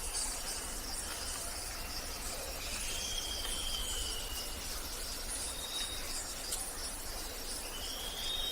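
Forest ambience: a steady, high-pitched insect chorus with a pulsing texture. Over it come a few long, thin bird whistles: one drawn-out whistle about three seconds in, a short high note near the middle, and another whistle near the end.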